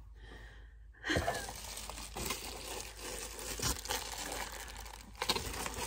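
Packaging crinkling and tearing as a mailer is handled and pulled open, starting about a second in and going on as a dense crackle with many small clicks.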